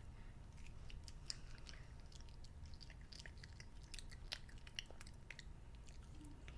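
A child chewing sour-apple candy grass strands with his mouth open: faint, frequent small mouth clicks and smacks.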